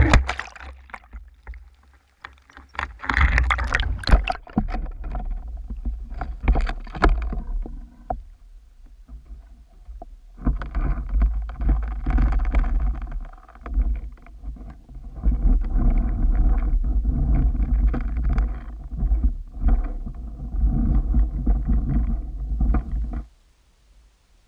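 Handling noise from an underwater camera being moved into place: knocks and scrapes, then a muffled low rumble with scraping as water moves against the housing. It cuts off suddenly near the end.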